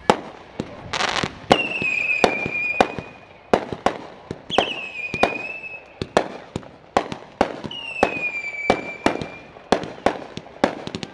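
Aerial fireworks going off in a rapid string of sharp bangs and crackles. Three long high whistles from whistling shells cut through, each dropping a little in pitch and then holding.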